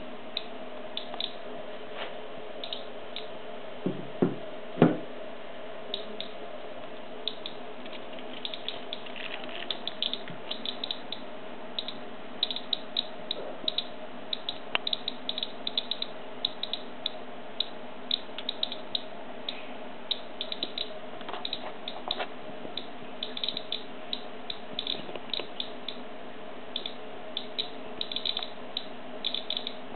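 Nuclear Enterprises RM6 ratemeter with a BP7 probe clicking irregularly through its speaker, a few clicks a second. Each click is a beta particle from the potassium-40 in potassium chloride diet salt. A faint steady hum sits underneath, and two louder knocks come about four and five seconds in.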